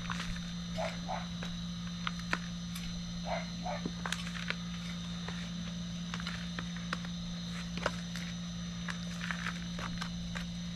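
Handfuls of moist potting mix crumbling and dropping into a black plastic nursery pot around a rootstock, making scattered light ticks and patters, then hands pressing the soil down near the end. Under it runs a steady low hum with a faint steady high whine.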